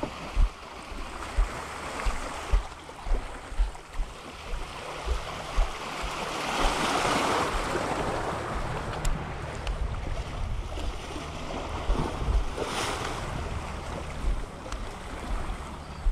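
Small waves washing on a rocky shore, with wind buffeting the microphone, a louder rush of surf in the middle, and irregular low thumps of footsteps on the rocks.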